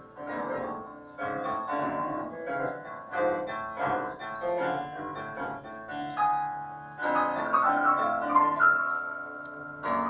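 Solo piano music: a melody with chords, new notes struck about twice a second and left ringing.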